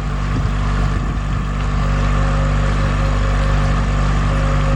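Motor of a small hired motorboat running steadily under way, a low even hum with a rushing noise over it.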